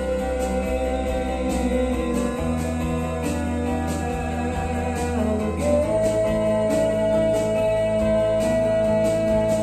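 Instrumental music: a held, gliding lead line over bass notes that change pitch twice.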